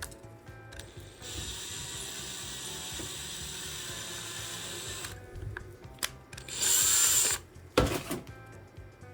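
Small power drill running steadily for about four seconds, then a shorter, louder run, drilling rivet holes through a laptop's broken hinge mount. A sharp knock follows near the end, with faint background music underneath.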